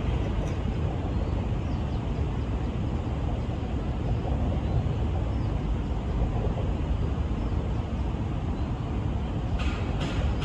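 Steady low outdoor rumble of wind and road traffic, with a few light ticks near the end.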